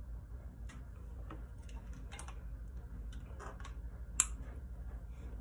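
Scattered faint clicks and ticks, with one sharper click about four seconds in, over a steady low hum.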